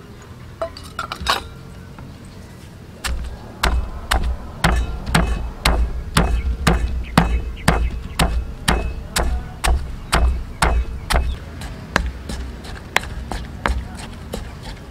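Stone pestle pounding red chilies, garlic and coarse salt in a heavy stone mortar: a few light knocks, then sharp, even strikes at about two to three a second starting about three seconds in, each with a dull thud.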